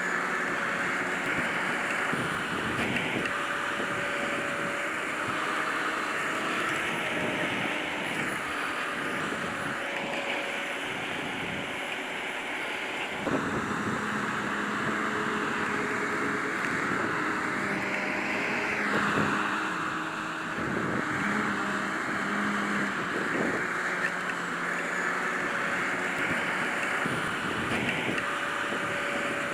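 Grimme Varitron 270 potato harvester working: a steady mechanical running noise with an engine note that shifts pitch a few times, and occasional knocks.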